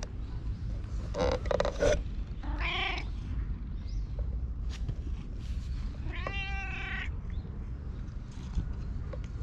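Cat meowing three times, about a second in, about three seconds in and about six seconds in, the last meow the longest and wavering.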